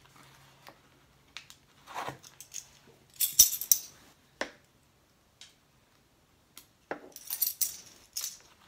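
Metal measuring spoons on a ring clinking and tapping while soft butter is scooped and scraped into a slow cooker crock: scattered light clicks, a sharp knock about three and a half seconds in, and a run of jangling near the end.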